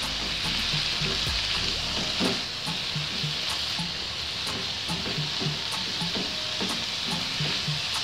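Shredded cabbage sizzling in hot oil in a wok, with a steady frying hiss, while a spatula stirs and scrapes it with light ticks against the pan.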